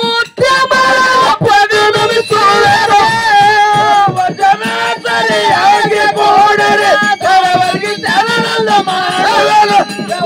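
Men singing a Kannada dollu pada, a folk song of the dollu drummers' tradition, amplified through a microphone, in long wavering melodic lines.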